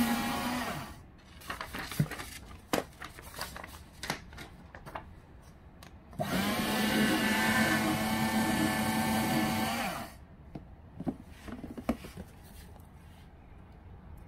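GBC ShredMaster strip-cut paper shredder's motor running with a steady hum as it cuts a sheet of paper, stopping just under a second in. After some clicks and paper handling it starts again about six seconds in, shreds another sheet for about four seconds, and stops, followed by more light knocks and handling.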